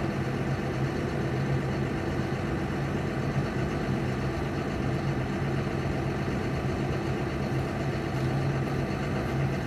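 Caterpillar 320EL hydraulic excavator's C6.4 six-cylinder diesel engine idling steadily.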